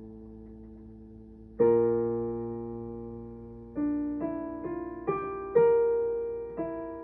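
Solo piano playing slowly. A held chord fades out, a loud chord is struck about a second and a half in, and a few more notes and chords follow near the end, each left to ring and fade.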